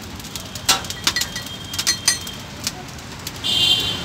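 A metal spatula clinks and taps against dosa griddles and steel pans in a string of sharp, irregular clicks over steady street noise. A high steady tone comes in near the end.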